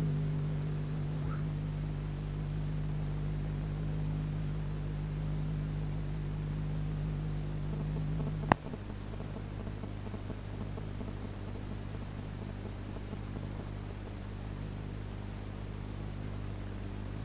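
Steady mains hum and hiss on the recording, made of several fixed low tones. A single sharp click comes about eight and a half seconds in, after which the hum is weaker and thinner.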